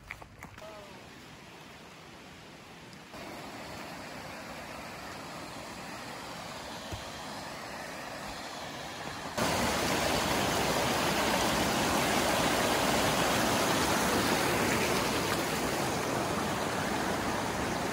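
Rushing water of a small woodland stream running over rocks and a little cascade, a steady hiss that gets louder in two sudden steps, about three seconds in and again about nine seconds in.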